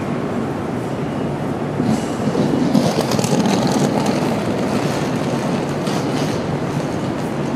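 Train running on the rails in a station, with clattering that grows louder about two seconds in and eases after four and a half seconds.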